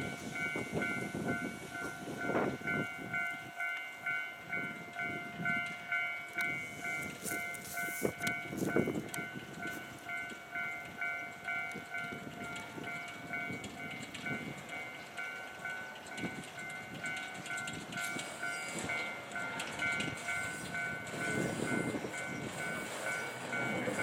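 Amemiya-built 1928 narrow-gauge forest-railway steam locomotive working slowly, its exhaust chuffing in a slow, even beat, with a level-crossing warning bell ringing in a steady pulse over it.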